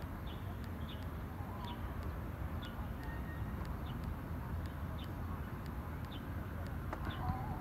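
Outdoor ambience: a steady low rumble, with a short high chirp recurring about once a second.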